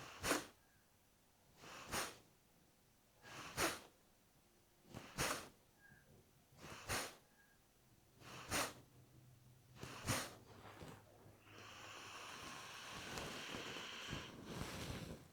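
Kapalbhati breathing through the right nostril: seven sharp, forceful nasal exhalations about one every second and a half, then a long steady breath through the nose lasting a few seconds near the end.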